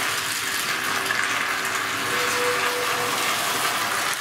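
Steady rushing hiss while a stream of molten lead is poured into a steel keel cavity, with a faint steady hum beneath it.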